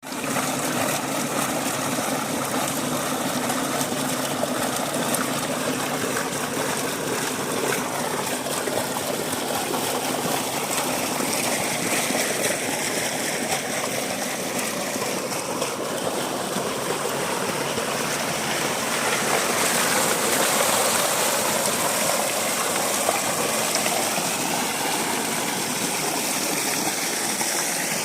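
Water gushing steadily from a high-pressure tube well pump's outlet.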